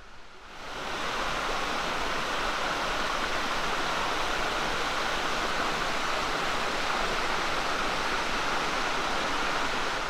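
Waterfall rushing: a steady, even noise of falling water that fades in over the first second and then holds level.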